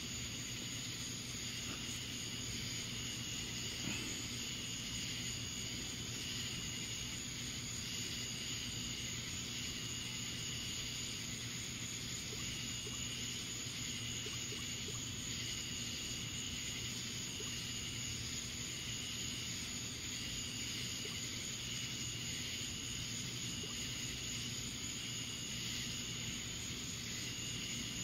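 Summer-night insects chirping in repeated pulses about a second long, over a steady outdoor hiss.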